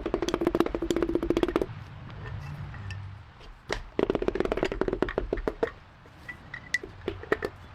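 Ratchet wrench clicking rapidly on an engine bolt, in two runs of about two seconds each, with a few light taps near the end.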